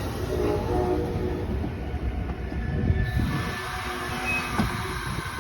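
Amtrak passenger train rolling slowly along the platform as it comes to a stop, a steady low rumble with a few short squeals from the wheels and brakes.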